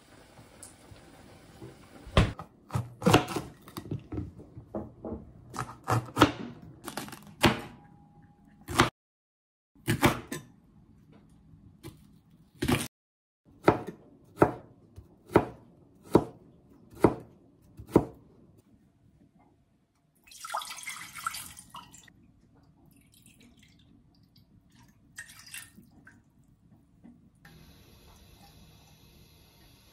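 A run of kitchen sounds. First comes a series of knocks and clinks as items are handled at the refrigerator. Next a kitchen knife slices ginger on a cutting board in sharp, even strokes about once a second, then comes a short splash of liquid, and near the end a steady faint hiss.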